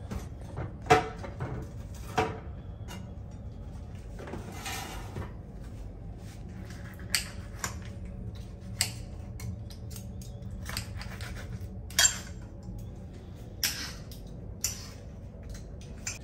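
Knife and fork clinking and scraping on a ceramic plate while cooked chicken breast is cut into pieces: short, sharp clinks at irregular intervals, about a dozen in all.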